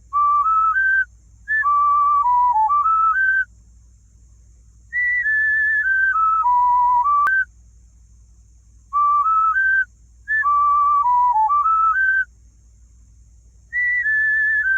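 A whistle-like tune of short, evenly held notes stepping up and down. It is played as two phrases that repeat, with pauses of a second or two between them.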